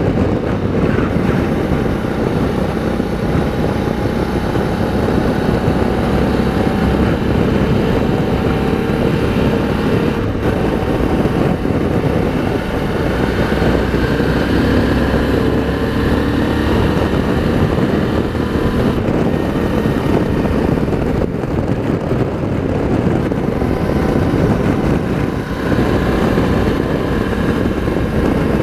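Suzuki V-Strom 650's V-twin engine running at road speed on a winding road, its note rising and falling gently, under a steady rush of wind on the rider's microphone.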